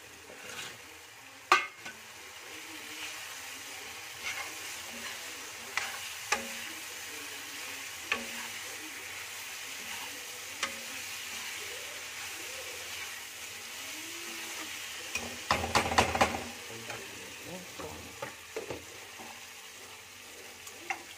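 Thick onion-tomato masala sizzling in a black iron kadhai as a steel spoon stirs it, with sharp clinks of the spoon against the pan. A single clink about a second and a half in and a quick flurry of clinking and scraping around fifteen to sixteen seconds in are the loudest.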